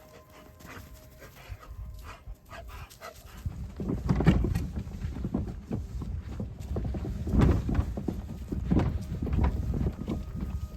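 Dog panting close to the microphone, much louder from about four seconds in, over a low rumble.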